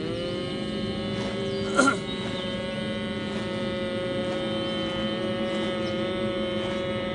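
Group humming in bhramari pranayama (bee breath): several voices each hold a steady, buzzing 'mmm' at different pitches, one voice sliding up into a higher held note at the start. A short sharp knock sounds about two seconds in.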